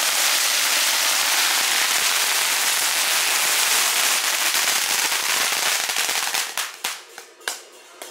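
A string of firecrackers going off in a rapid, continuous crackle, thinning to a few separate bangs about six and a half seconds in as the string burns out.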